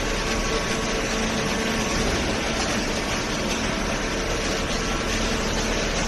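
Hydraulic power unit of a vertical cardboard baler running steadily, a constant machine noise with a faint hum.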